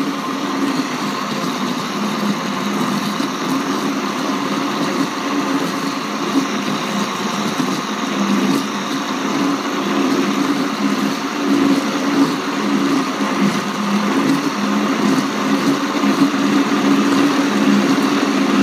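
Vitamix 750 blender motor running steadily, blending hot potato soup as cooked chicken is added through the lid opening. The hum grows slightly louder toward the end.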